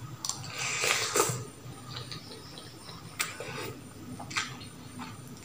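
Instant noodles being slurped up from a fork, a hissing suck in the first second or so, followed by a couple of sharp clicks of the metal fork and spoon against a glass plate.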